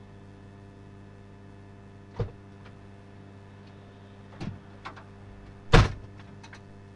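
Steady electrical hum in the recording. Over it come a sharp knock about two seconds in, a couple of softer knocks a little later, and a louder, heavier thump about six seconds in, followed by two faint ticks.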